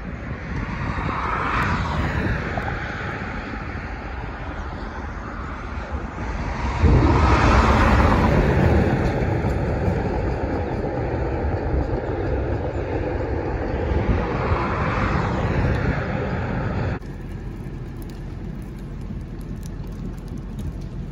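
Road traffic: vehicles passing one after another, each swelling and fading. The loudest pass comes about seven seconds in, heavy with low rumble, over a steady rush of road noise. The sound drops suddenly to a quieter steady hiss near the end.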